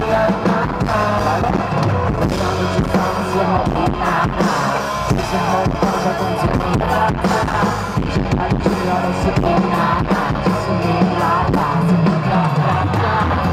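Live band playing a pop-rock song with a drum kit, a male voice singing over it at times.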